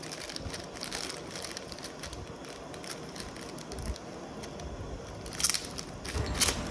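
Thin clear plastic bag crinkling and crackling as fingers handle and open it, with a couple of louder crackles near the end.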